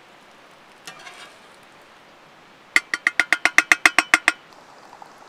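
A utensil beating eggs in a metal bowl: a quick run of about a dozen ringing clinks, about eight a second, starting a little under three seconds in and lasting about a second and a half. A single softer clink comes about a second in.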